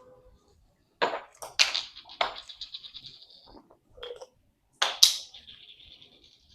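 Kitchen items knocking and clattering: three sharp knocks about half a second apart, each trailing into a light rattle, then a softer knock and a louder one near the end with a ringing rattle after it.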